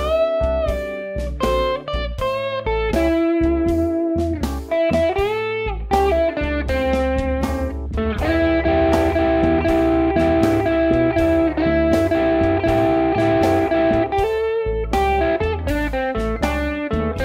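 Telecaster-style electric guitar playing a slow minor-pentatonic blues solo at about 80 beats per minute over a blues backing track with bass and drums. It opens with bent notes and vibrato, then from about eight seconds plays repeated triplet double-stops before returning to single-note lines near the end.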